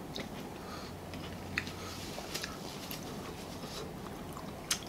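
Faint, scattered wet clicks and smacks of people eating with their hands, chewing sauced fried chicken and watermelon, over a low steady hum.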